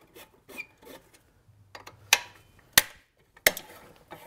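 An Allen key working the screws of a leaf blower's metal muffler gives a few light ticks, then three sharp metallic clicks about two-thirds of a second apart.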